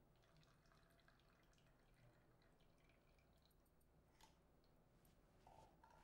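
Near silence, with a faint trickle and scattered drips of hot ghee pouring through a fine mesh strainer into a bowl.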